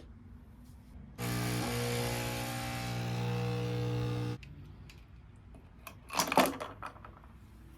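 A small electric motor, a handheld cleaning tool of the kind used to clean a keyboard, runs steadily for about three seconds with a hum and a hiss, then cuts off abruptly. A quick cluster of sharp clicks follows about six seconds in.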